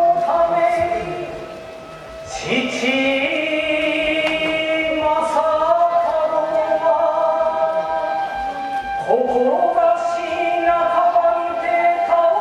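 Kagura music: several voices chanting in unison in long held phrases over the ensemble, each new phrase sliding up in pitch, about two seconds in and again near nine seconds.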